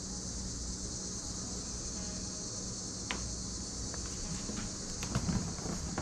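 A steady high hiss, with a few light clicks and rubs from hands pressing an adhesive-backed LED light strip onto a plastic kayak hull, most of them in the second half.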